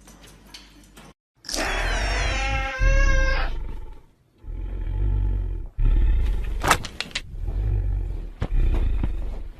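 An animal calling: a long, high cry that falls in pitch, followed by several shorter calls over a heavy low rumble.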